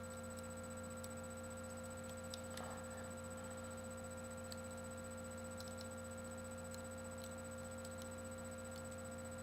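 Steady low electrical hum with a few faint, light ticks scattered through it: small handling clicks as a ribbon cable is worked into a camera's connector.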